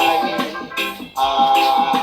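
A roots reggae song playing, with its melody holding one long note in the second half.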